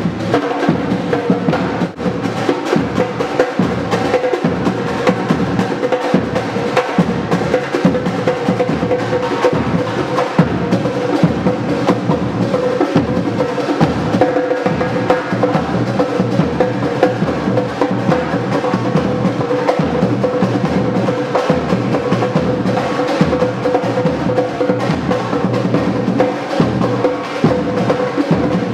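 Samba drumming: a percussion group of Brazilian drums playing a fast, driving rhythm without a break.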